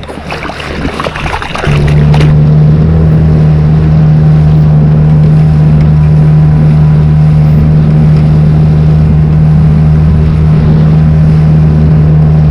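Small boat outboard motor starting up about two seconds in, then running loud and steady at an even speed.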